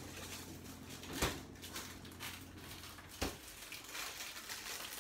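Two sharp knocks about two seconds apart, the first louder, with light rustling between, as things are taken from a refrigerator and its door is shut. A low steady hum stops at the second knock.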